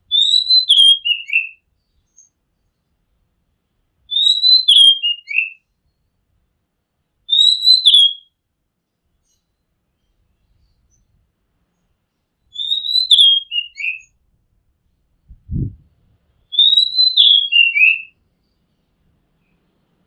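Oriental magpie robin singing five short whistled phrases a few seconds apart, each dropping from a high note to lower ones. A brief low thump comes about two-thirds of the way through.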